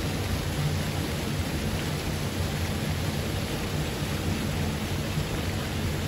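Floating pond fountain's spray falling back onto the water in a steady, rain-like splashing hiss, over a steady low rumble.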